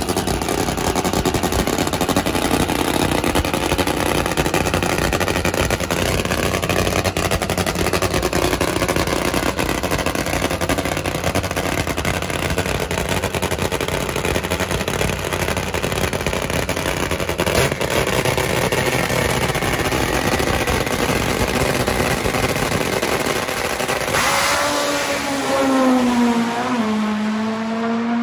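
Nitro-burning Top Fuel drag motorcycle engines running loudly on the starting line. About 24 s in, the bike launches: a sudden surge, then an engine note that dips briefly and climbs again as it pulls away down the track.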